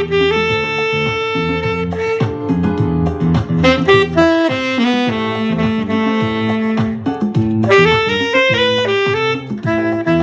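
Alto saxophone playing a jazzy melody, with a long held note at the start, then a falling run of notes and another held note, over an accompaniment with a bass line.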